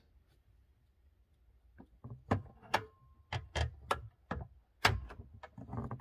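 Freshly fitted replacement glove box latch and lock knob on a 1984 Toyota FJ60 Land Cruiser being worked by hand: after about two seconds of quiet, a run of a dozen or so sharp, irregularly spaced clicks and knocks as the latch is operated and the glove box lid is worked.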